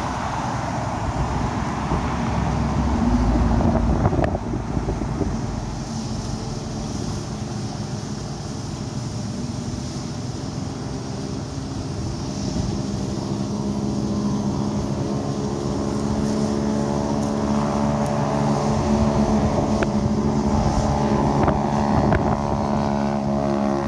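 Dodge Charger Daytona's HEMI V8 exhaust: a steady, deep engine drone that builds and grows louder through the second half. Before it, passing street traffic and wind on the microphone, with a louder pass-by about three to four seconds in.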